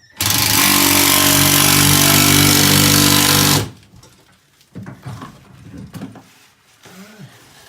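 Power drill driving a screw, its motor running at a steady speed for about three and a half seconds and then stopping; faint scattered handling sounds follow.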